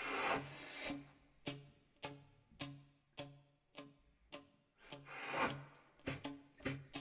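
Contemporary instrumental music: sharp, evenly spaced strikes, about two a second, each carrying a low pitched tone, with swells of rubbing, scraping noise at the start and again about five seconds in.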